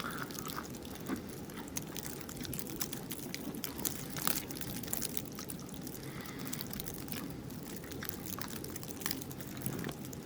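Scattered small clicks and crinkles over a steady low background: a packaged blackberry pie being handled and eaten.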